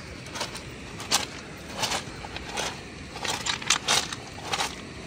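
Footsteps crunching on loose gravel and shale, a step about every three-quarters of a second.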